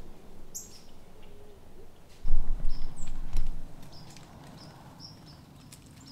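Small birds chirping in short high notes at dusk over a quiet field. A burst of low rumbling noise, the loudest sound here, comes a little over two seconds in and lasts about a second and a half, with a sharp tick near its end.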